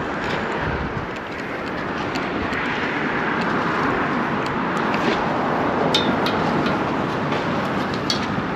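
Steady rushing of road traffic on a highway bridge, swelling slightly a couple of seconds in, with a few faint clicks in the second half.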